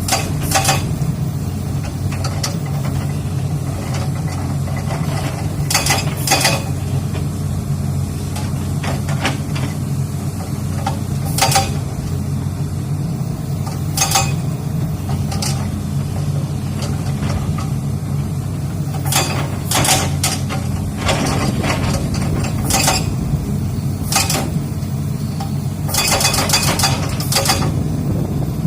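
Excavator's diesel engine running steadily while its hydraulic rock breaker works on rock, giving irregular sharp metallic knocks and a quick run of strikes near the end.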